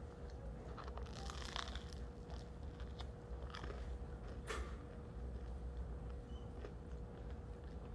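Close-up chewing of a mouthful of bread, with small clicks and soft crunches of the crust, over a steady low hum.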